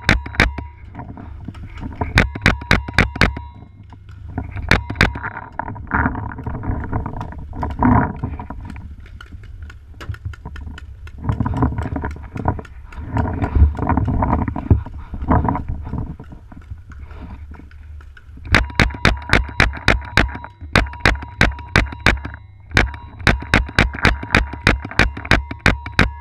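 Paintball marker firing in long rapid strings of shots, about four a second, with a rougher, more broken stretch of shooting through the middle.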